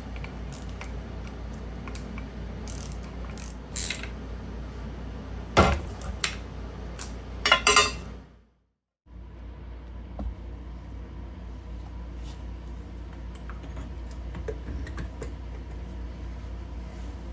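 Socket ratchet clicking as a nut on the exhaust silencer's clamp is worked, with a few sharp metal clanks of tools on a steel bench. After a sudden break, quieter clinks and scrapes of metal parts being handled.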